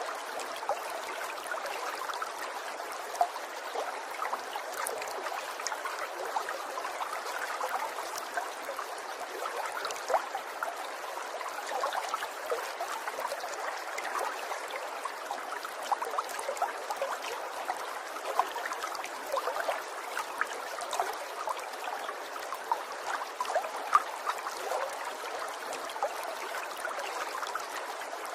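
Water trickling steadily, a continuous light babble with many small splashes and drips.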